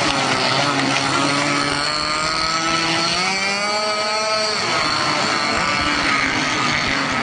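Small model engine of a radio-controlled airboat spinning its caged air propeller, the pitch climbing as it is throttled up from about three seconds in and dropping back a second and a half later.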